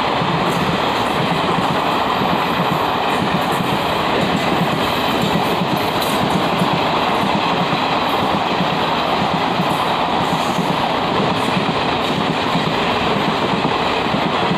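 Passenger coaches of an express train passing close at speed without stopping: a steady, loud rush of steel wheels on the rails, with clickety-clack over the rail joints.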